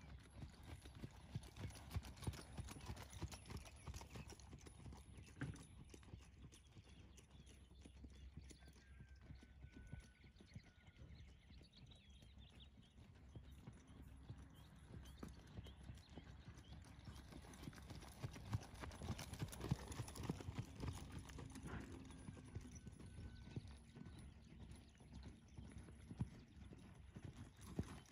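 Faint hoofbeats of a horse loping on a soft dirt arena, a quick rolling run of dull thuds that grows louder about two-thirds of the way through.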